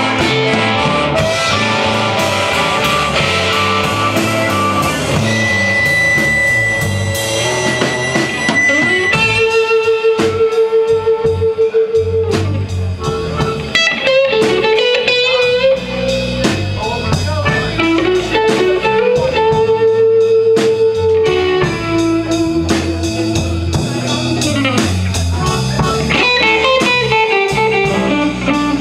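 Live blues band playing an instrumental section: harmonica held notes, one wavering about ten seconds in, over electric guitar, bass guitar and drum kit.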